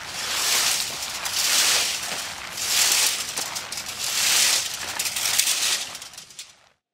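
Rake sweeping through dry fallen leaves, a crackly rustle swelling and fading about once every second and a half, dying away near the end.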